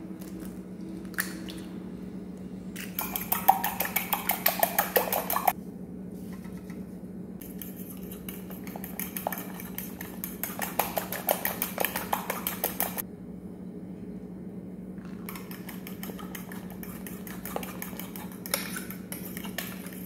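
A metal fork beating sugar, egg and melted butter in a glass bowl, its tines clicking rapidly against the glass in three spells of a few seconds each.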